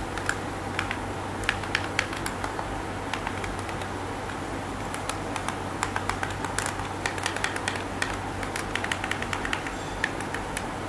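Many quick, irregular clicks of TV remote buttons being pressed to move across and select keys on an on-screen keyboard, over a low steady hum.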